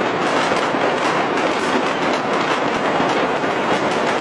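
Countless firecrackers and fireworks going off at once across a city, blending into a dense, unbroken crackle.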